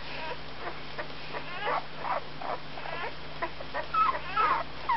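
One-week-old Berger Picard puppy giving short, high squeaks and whimpers, more frequent and louder near the end, while its mother licks its belly and rear to make it relieve itself before nursing.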